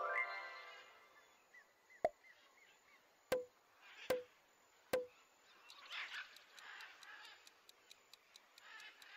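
Quiz-game sound effects: a bright chime with several ringing tones at the start, as the correct answer lights up. About two seconds in there is a click, then three quick pops under a second apart as the answer choices pop onto the screen.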